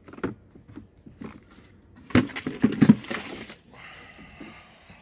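Plastic glove box of a Nissan X-Trail T31 being handled and pushed back into the dashboard: scattered clicks and knocks, then a denser run of knocking and rubbing about two seconds in. A brief squeaky scrape of plastic on plastic follows near the end.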